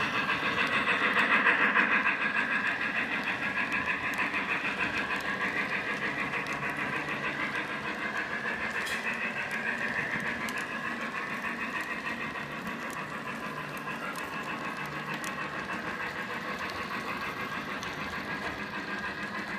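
O gauge model train running on its track: a steady rolling, whirring noise with a fast, even clicking from the wheels as the locomotive and passenger cars pass.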